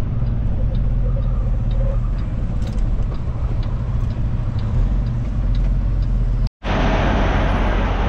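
Semi truck's diesel engine idling steadily, with a faint regular ticking over it. About six and a half seconds in the sound drops out for a moment and comes back with a louder hiss over the engine.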